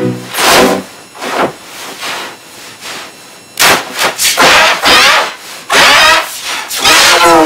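Harsh, heavily processed screaming mixed with banging noise, coming in irregular loud bursts, with a quieter stretch before the bursts return about three and a half seconds in.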